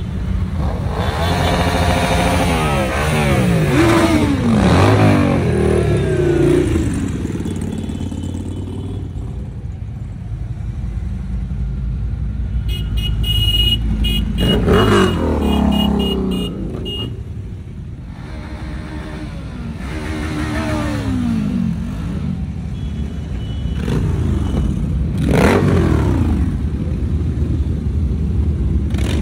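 A long stream of motorcycles riding past in procession with a steady engine rumble. Several bikes pass close, around a few seconds in, midway and near the end, and each one's engine note drops in pitch as it goes by.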